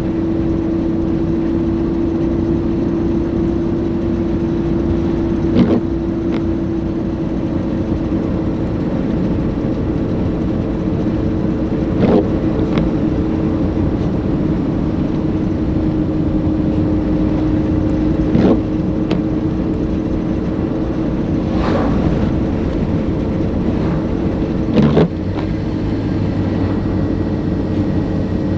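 Car driving, heard from inside the cabin: a steady engine and road drone, with a short brief sound every three to six seconds.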